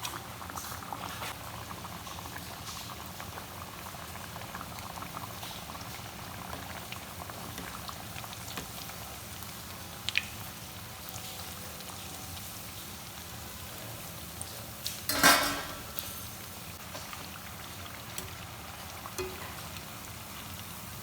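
Liquid bubbling steadily in a pan on the stove, with a sharp click about ten seconds in and a short, louder clatter about fifteen seconds in.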